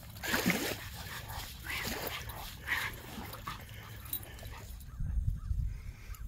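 A pocket beagle whimpering with a few short high yips over the first three seconds. Wind rumbles on the microphone near the end.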